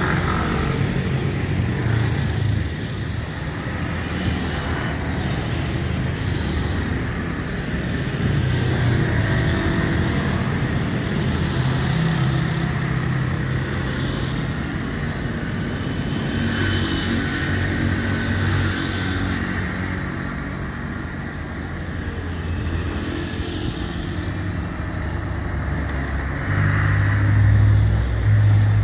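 Airbus A321-231's twin IAE V2500 turbofans at takeoff thrust, a steady jet rumble through the takeoff roll that grows loudest near the end as the airliner lifts off.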